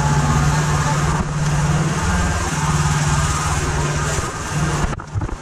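Small petrol engine of lawn equipment running steadily at high speed, dipping briefly about a second in and dropping off near the end.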